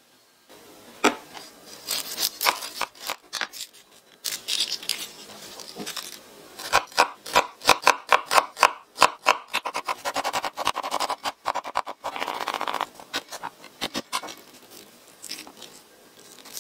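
Kitchen food preparation: sharp knocks and taps of utensils, irregular at first, then a quick steady run of strikes about halfway through, followed by a few seconds of scraping.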